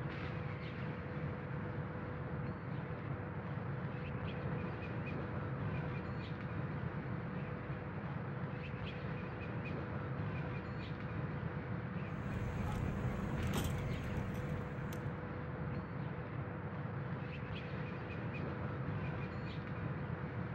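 Outdoor ambience: a steady low rumble with a faint steady hum and faint bird chirps every couple of seconds. About twelve seconds in, a louder hissing rush lasts a few seconds.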